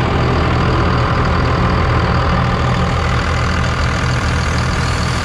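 5.9-litre 24-valve Cummins inline-six turbo-diesel idling steadily, heard close up under the open hood.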